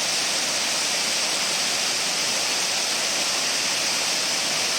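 Siffleur Falls, a large river waterfall heard up close: a loud, steady rush of falling water that does not let up.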